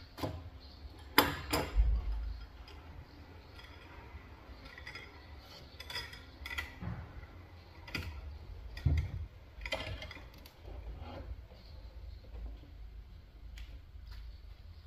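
Scattered sharp knocks and clicks over a low rumble, the loudest a pair about a second in, with a few more spread through the middle.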